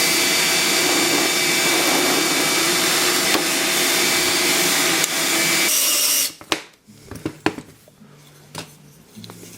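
Power drill running steadily as it bores a hole for a bolt through a maple block, with a constant motor whine. It shifts briefly and then stops about six seconds in, followed by a few light knocks and clicks.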